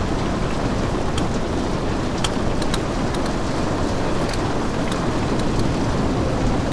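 Steady rushing water noise, heaviest in the low end, with scattered sharp ticks throughout.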